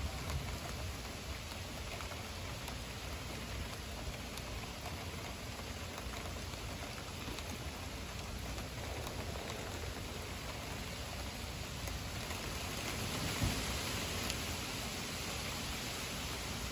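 Heavy thunderstorm rain pouring steadily with a dense hiss, growing louder about three-quarters of the way through.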